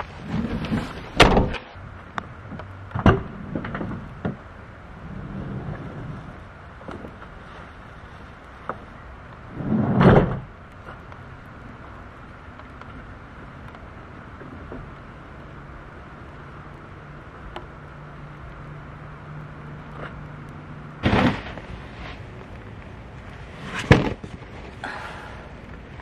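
Several knocks and thuds over a steady hiss of rain: a Dodge Sprinter van's sliding side door moving with a heavy thud about ten seconds in, and a plastic storage bin's lid knocking near the end.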